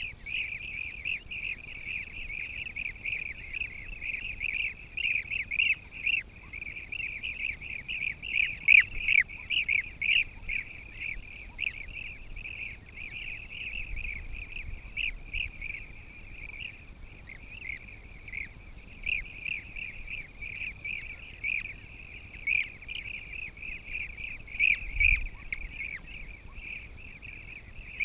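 Blue-cheeked bee-eaters calling, many short chirps overlapping in a steady chatter, with some calls louder than the rest.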